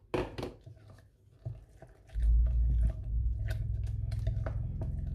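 Spatula stirring grated cucumber, garlic and dill into vegan cream cheese in a bowl: wet squelching and scraping strokes, with a few sharp clicks near the start and a steady low rumble setting in about two seconds in.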